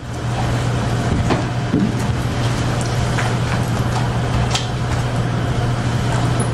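Railway station sound effect: a steady low vehicle rumble with a strong hum, broken by scattered short clicks and knocks.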